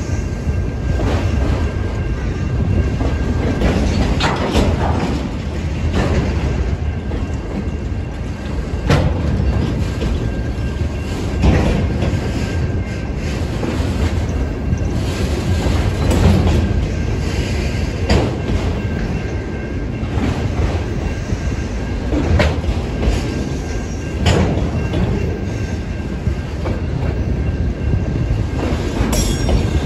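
Autorack freight cars rolling past close by: a steady rumble of steel wheels on the rails, with sharp clicks every couple of seconds as the wheels cross rail joints.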